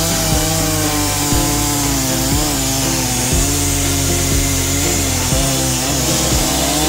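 Oleo-Mac 952 two-stroke chainsaw running steadily as it cuts through a log round. Background music with a beat about once a second plays under it.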